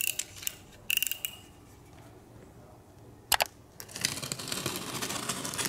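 New Ichendorf Milano drinking glasses being unboxed: a couple of short glassy clinks with a brief ring in the first second or so, a sharp knock about three seconds in, then rustling of packaging.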